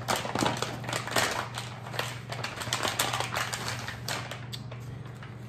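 Paper fast-food bag crinkling and rustling as it is opened out and pressed flat by hand, a rapid run of crackles that dies down about four and a half seconds in.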